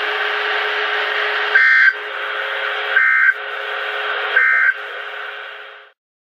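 NOAA Weather Radio end-of-message SAME data bursts: three short buzzy digital bursts about 1.4 s apart, marking the end of the required weekly test. They sound over a steady radio hiss, which cuts off near the end.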